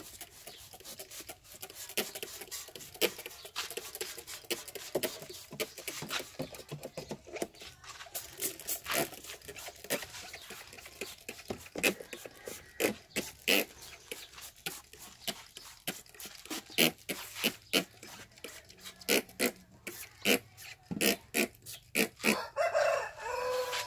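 Many short, sharp clicks scattered throughout. Near the end, a rooster crows once.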